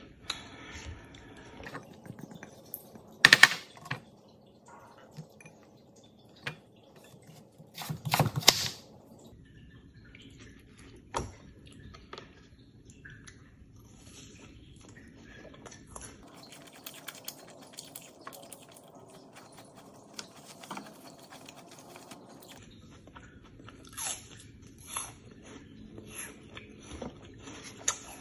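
Close-up eating sounds: bites and chewing of oat pancake, with two loud crunchy bites about three and eight seconds in and smaller mouth clicks between.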